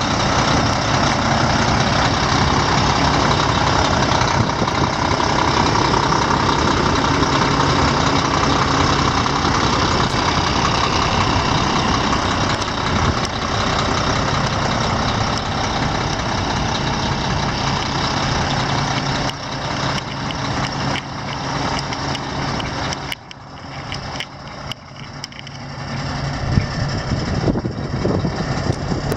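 Volvo diesel engine of a 2012 Volvo VNL semi-tractor idling steadily. In the last third the sound dips and there are scattered clicks, with one sharp knock near the end.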